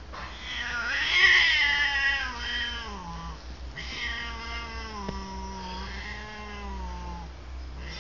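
A cat yowling: two long, drawn-out calls. The first swells and then slides down in pitch over about three seconds; the second is lower and steadier and lasts about three and a half seconds.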